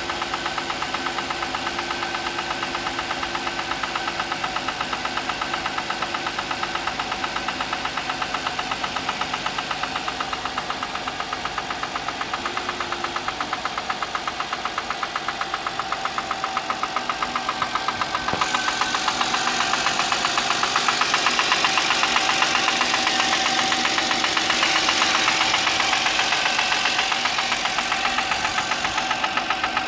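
Audi A6 C6 engine running with a fast, even knocking, the engine knock the owner hears in the morning. About eighteen seconds in, a loud hiss joins for about ten seconds.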